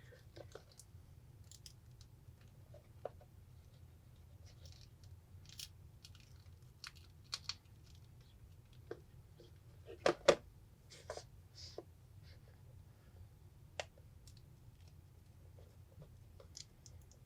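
Plastic spudger scraping and prying shattered tablet screen glass off its adhesive: scattered faint clicks, scratches and crackles of breaking glass, the loudest two snaps close together about ten seconds in, over a low steady hum.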